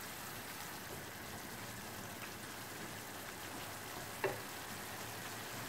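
Minced pork with onion, carrot and tomato paste sizzling steadily in a pan as it stews, stirred with a wooden spatula. One sharp knock about four seconds in.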